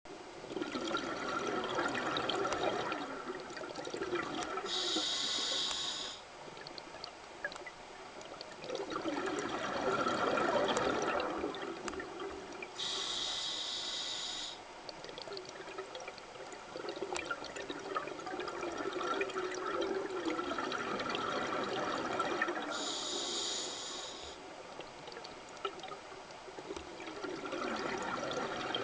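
Scuba diver breathing through a regulator underwater, heard through the camera's underwater housing. Three hissing inhalations of about a second and a half each alternate with longer spells of exhaled bubbles.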